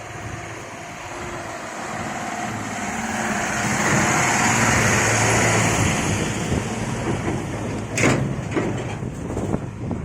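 A heavy vehicle's engine running as it draws near, growing louder to a peak midway and then fading, with a sharp clank about eight seconds in and a few lighter knocks after.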